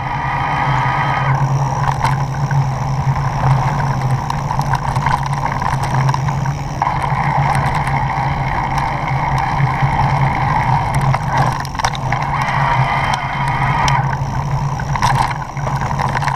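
Steady riding noise from a knobby-tyred bike moving along a lane and then a dirt trail: tyre rumble and wind on the handlebar-mounted camera, over a steady low hum.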